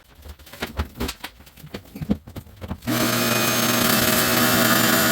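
A few light knocks and clicks, then, about three seconds in, a pressure washer starts up suddenly and runs with a steady motor hum and a loud hiss.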